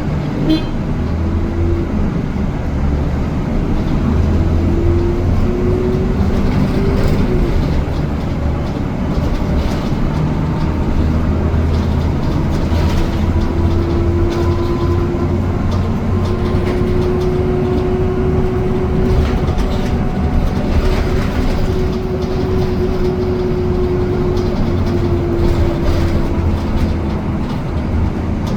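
Metrobüs rapid-transit bus on the move: a steady low engine and road rumble, with a faint whine that drifts slowly up and down in pitch.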